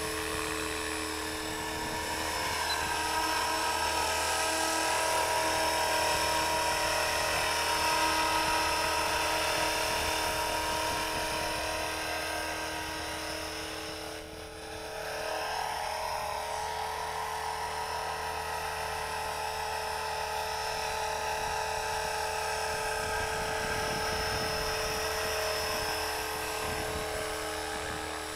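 Electric motors and spinning rotors of a small radio-controlled rotorcraft, giving a steady high whine of several pitches at once. About halfway through it briefly drops in level and slides in pitch, then settles back.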